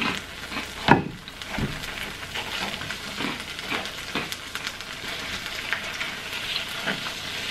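Melted mozzarella sizzling and crackling on a hot electric griddle as a wooden spoon and a spatula stir it, with a sharp utensil knock against the pan about a second in.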